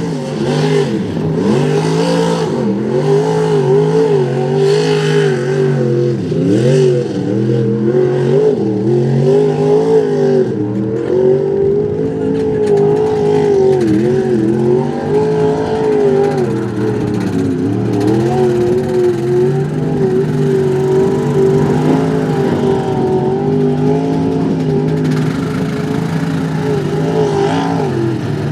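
Mud-bog truck's engine running hard under heavy throttle, its pitch surging up and down over and over as the throttle is worked, without letting up.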